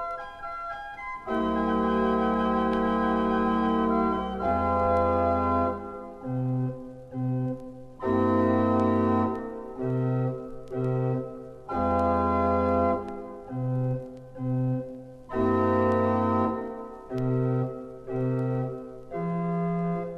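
1902 Wilhelm Sauer late-romantic pipe organ playing full chords over a deep pedal bass. Long held chords alternate with pairs of short, detached chords.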